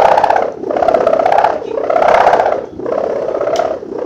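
A sendaren kite hummer made of gift ribbon with plastic end strips, buzzing in a snoring-type (ngorok) drone. The drone swells and fades about once a second, four pulses in all.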